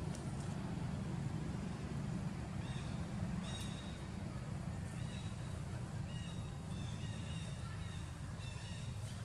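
Outdoor background with a steady low rumble, over which faint short high-pitched calls sound several times, some in quick pairs, from about a third of the way in.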